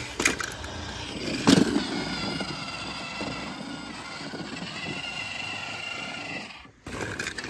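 Toy bulldozer's motor running, a steady engine-like drone with a high whine. Two knocks come in the first couple of seconds, and it cuts off suddenly near the end.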